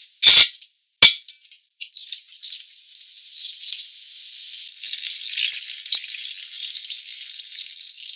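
Two sharp clinks about a second apart as pieces of rock sugar drop into the pot, then water pouring from a kettle onto the ingredients, a hiss and splash that grows louder about five seconds in.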